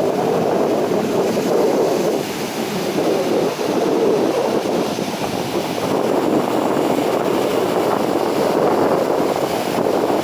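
Sea waves washing continuously, with wind buffeting the microphone.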